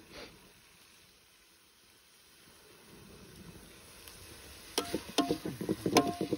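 Steel ladle stirring chopped onion and tomato frying in a steel pot, with faint sizzling at first. About five seconds in comes a run of clinks and knocks as the ladle scrapes and strikes the pot, one knock ringing briefly.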